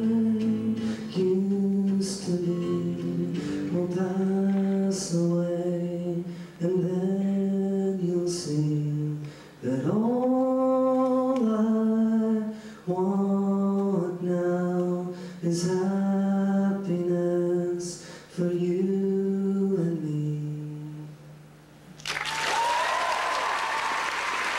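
A solo male voice sings a wordless melody in long held notes over acoustic guitar, closing the song. Audience applause breaks out about 22 seconds in.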